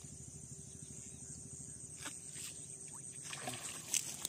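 A hooked tilapia yanked out of the pond near the end: a splash of water as it breaks the surface, the loudest hit about four seconds in. A steady high insect buzz runs underneath.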